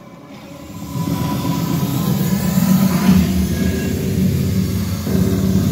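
A steady low mechanical rumble that swells up about a second in and holds, with a faint steady tone above it.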